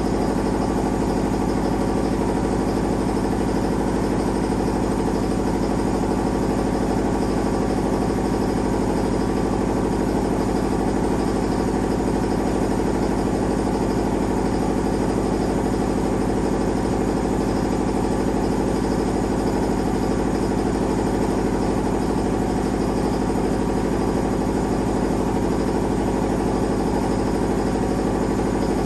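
Fire alarm sounding continuously: one steady, unbroken buzzing tone that does not change.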